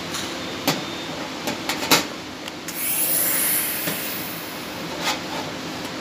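Small stainless steel parts clicking and knocking against a steel work plate several times, then about a second of hissing from a TIG welding torch as the part is tacked, over a steady hum.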